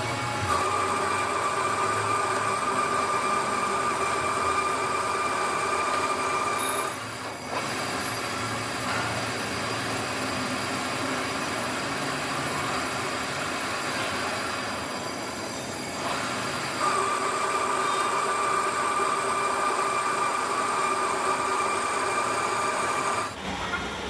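Metalworking machine running steadily with a high, squealing whine from tool steel being worked. The whine is strong at first, eases off for a stretch, then comes back strong before a short break near the end.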